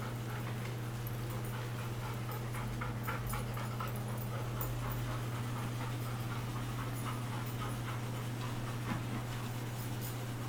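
Faint sounds from a dog over a steady low hum, with scattered light ticks.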